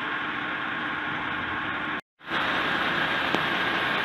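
Fire engines' diesel engines running as the trucks move off, a steady engine noise; the sound cuts out for a moment about two seconds in.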